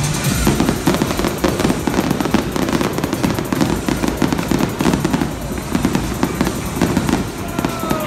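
Aerial fireworks display: many shells bursting and crackling in quick succession, a dense, unbroken run of bangs.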